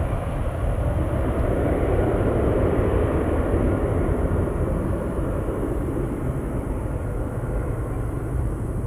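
Jet airliner's engines passing, a rushing noise that swells about two to three seconds in and then slowly fades, over a steady low rumble.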